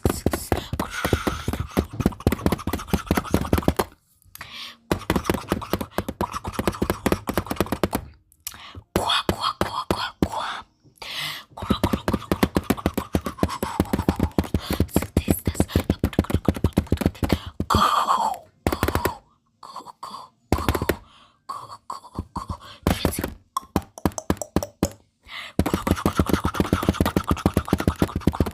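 Rapid fingertip tapping on a camera: fast runs of taps broken by short pauses.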